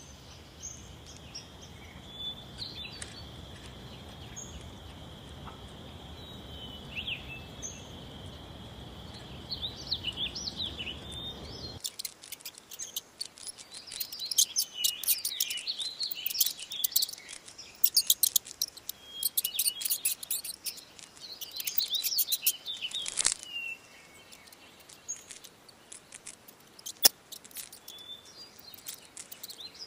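Outdoor ambience: for about twelve seconds a steady high-pitched drone over a low hiss, with a few short calls. Then the sound changes abruptly to small birds chirping and twittering in rapid, loud, high-pitched bursts.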